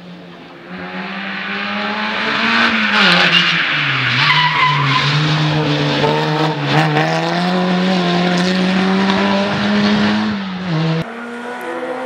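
Skoda 130 rally car at full throttle, coming through a corner and sliding past, with a short tyre squeal. The engine note builds, dips about three to four seconds in as the driver comes off the throttle, then climbs steadily. A sudden change near the end brings in a quieter engine note.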